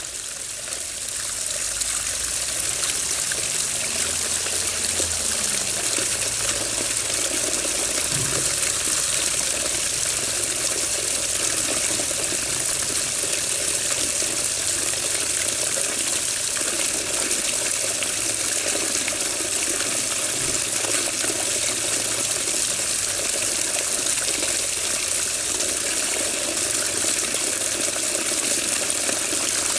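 Water running steadily in an even hiss, fading in over the first two seconds.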